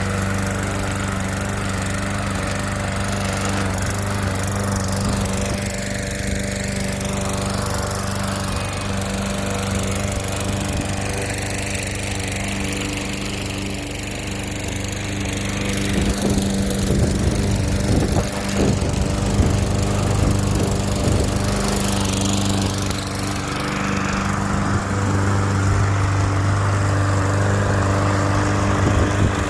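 Self-propelled gas walk-behind lawn mower running steadily while cutting grass. From about halfway it gets a little louder, with irregular knocking and rattling for several seconds.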